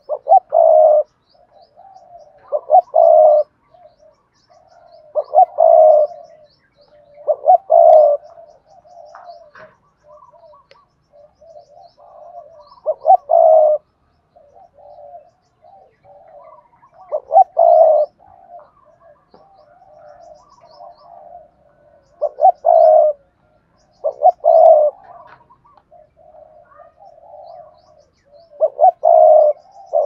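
Spotted dove cooing: loud coo phrases repeated every two to five seconds, with softer, lower coos in between.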